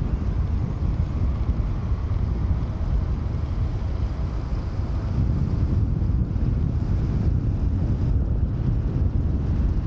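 Rushing airflow buffeting a microphone on a hang glider's wing in flight: a steady low wind rumble.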